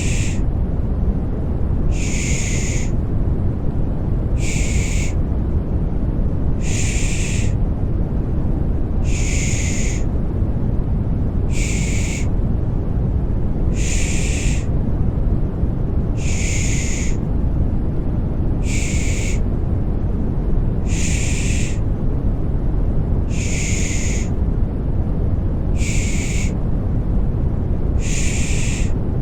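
Rhythmic 'shh' shushing for lulling a baby to sleep, a short hiss repeating about every two seconds, over a steady deep white-noise bed.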